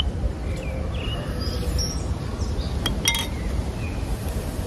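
Steady low rumble of wind on the microphone, with faint bird chirps now and then. About three seconds in come a few light clicks of tableware.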